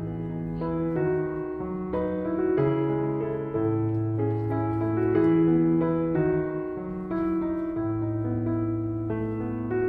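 Background piano music: slow held chords and melody notes over a bass line that moves about once every second or two.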